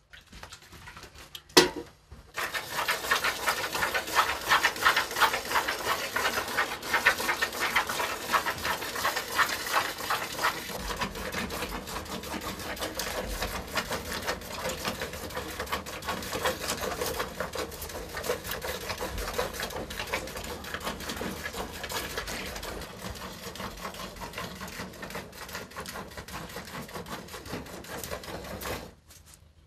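Cow being milked by hand: milk squirting into a plastic bucket in quick, rhythmic streams. It starts about two seconds in, just after a single sharp knock, and stops just before the end.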